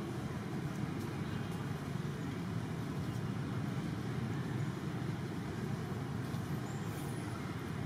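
Steady low background rumble of outdoor ambient noise, even and unchanging, with no monkey calls standing out.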